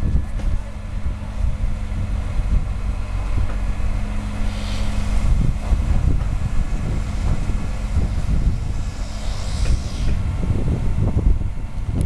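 Diesel engine of a mobile crane running steadily with a low hum while it hoists a prefabricated roof panel, under a rough low rumble.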